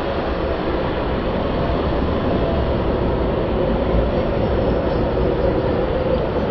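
A passenger train's coaches rolling steadily past: a continuous rumble and rush of wheels on the rails.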